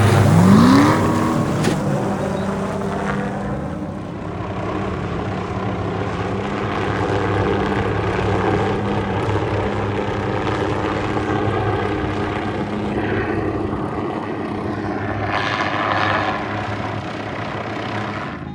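Engine noise: a quick rev rising in pitch right at the start, then an engine running steadily.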